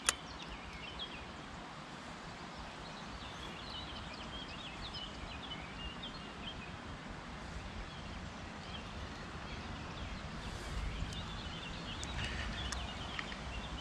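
Small birds chirping over and over in the background over steady outdoor noise, with one sharp click at the very start. Near the end a low rumble and a few clicks come in as the fishing rod and spinning reel are handled.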